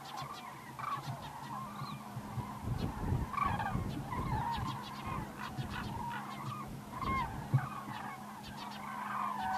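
A flock of common cranes calling in flight: many overlapping rolling, bugling calls. A low rumble rises under the calls around the middle.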